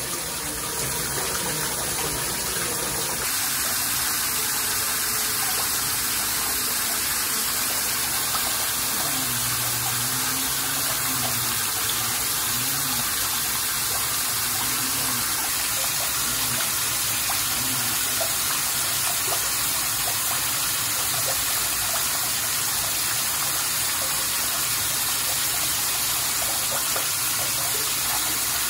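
Shower running: a steady, unbroken spray of water falling.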